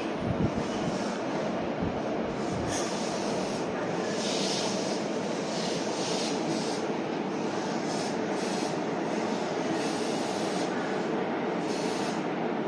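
Electric train running along a station platform: a steady rolling rumble, a few sharp clicks just after the start, and recurring bursts of high hiss.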